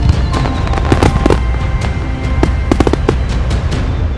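Fireworks going off in a rapid run of bangs and crackles, several a second, over music with held notes.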